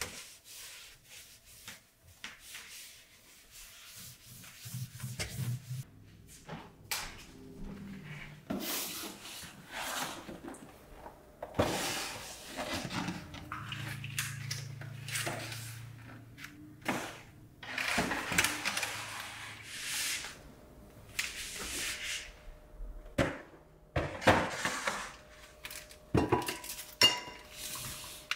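Household handling sounds: a cloth rubbing along a baseboard, then boxes slid onto a shelf and items set down with knocks and rustles. Near the end, metal butane canisters are set down on the shelf with a short ringing clink.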